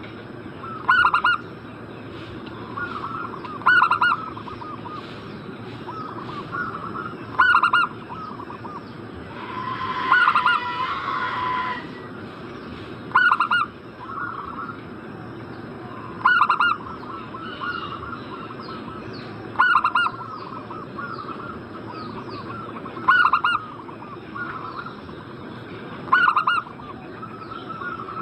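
Zebra doves (perkutut) cooing, with a loud call repeating about every three seconds and softer chatter between. A longer, fuller burst of calling comes about ten seconds in.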